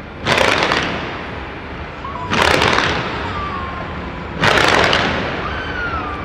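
Fireworks display: volleys of aerial shells go off about every two seconds, three times, with a fourth starting at the very end. Each volley is a sudden bang followed by crackling that fades over a second or so.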